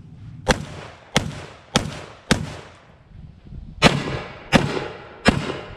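GForce Arms GFZ semi-automatic bullpup 12-gauge shotgun firing: a string of four shots about half a second apart, then after a short pause three more, each shot echoing briefly.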